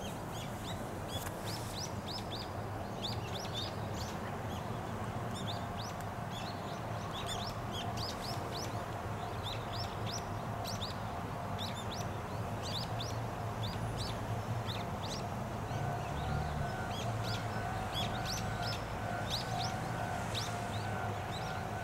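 Small birds chirping, many short high calls repeated throughout, over a steady low background rumble. A faint pulsing tone joins about two-thirds of the way in.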